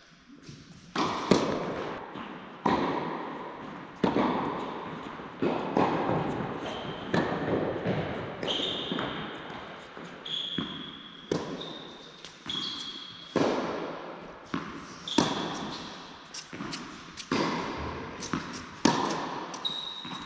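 Tennis ball hit by rackets and bouncing on an indoor hard court during a rally, a sharp pop about every second, each ringing out with echo in the large hall. Short high squeaks of shoes on the court come between the hits.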